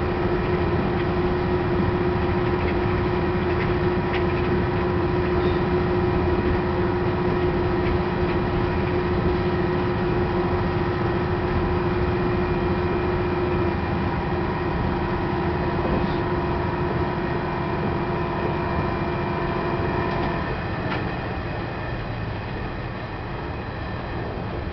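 KiHa 110 series diesel railcar running along the track: a steady rumble of the car and wheels on rail, with a steady whine over it. The whine stops about twenty seconds in, and the sound eases off a little.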